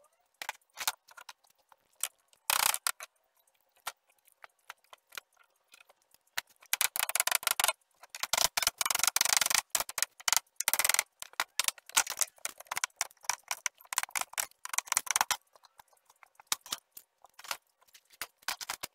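A hammer clinking and scraping against an old wooden board, with knocks and clatter as the boards are handled. The sound comes in irregular clusters of sharp clicks and rasps, busiest in the middle.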